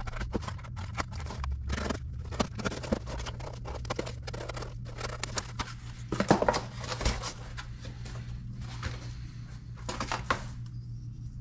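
Utility knife scoring and cutting cardboard, then the cut cardboard being folded and handled: a run of short scrapes and crinkles over a low steady hum.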